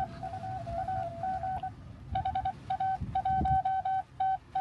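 Morse code (CW) received on a Xiegu X6100 transceiver and heard from its speaker: a single tone of about 700 Hz keyed on and off in dots and dashes. It is fainter at first, and a stronger signal comes in about two seconds in, over a low background noise.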